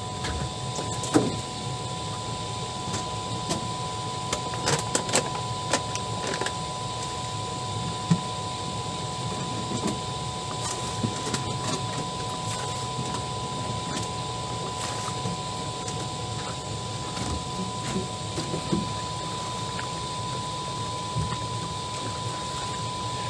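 Scattered knocks and clatter of a man moving about in a small boat and handling the catch and gear in its bottom, the sharpest knocks about a second in and near the middle. Under them runs a steady hum with a constant thin high tone.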